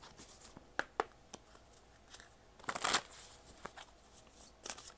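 A deck of oracle cards being shuffled and handled by hand: scattered soft card snaps and rustles, with a longer, louder rustle about three seconds in.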